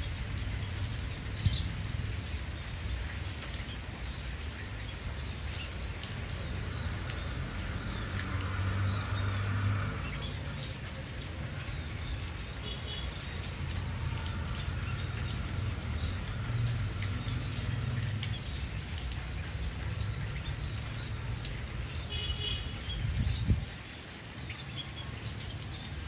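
Outdoor ambience: a steady hiss with fine crackling over a low rumble, with a few short high bird chirps about a second in, near the middle and shortly before the end, and a single thump near the end.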